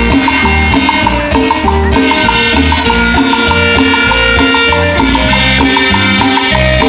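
Live cumbia band playing an instrumental passage: a steady, pulsing bass and percussion under a repeating melody of short notes.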